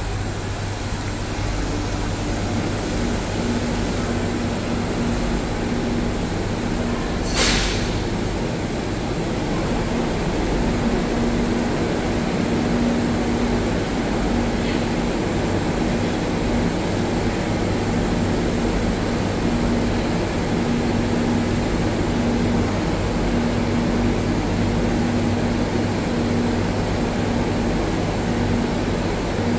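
Metro train standing at an underground platform with its doors open, its equipment and the station giving a steady hum with a low tone that comes and goes. A short hiss of released air about seven seconds in.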